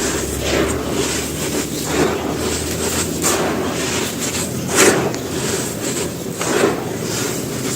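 Dry sand-cement pieces being crumbled, a continuous gritty crunching with a sharper crunch every second or two, the loudest about five seconds in.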